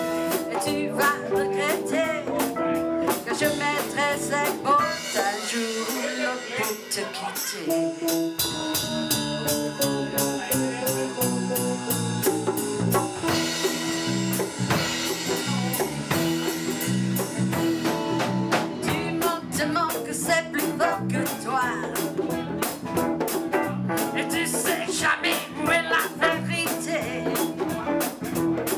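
Live blues band playing: electric guitars and a drum kit with steady beats, and a woman singing. The bass drops out for a few seconds about five seconds in, then comes back.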